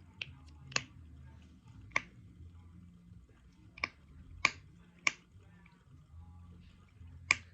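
A handheld snapper fidget toy snapped over and over, about half a dozen sharp snaps at irregular intervals.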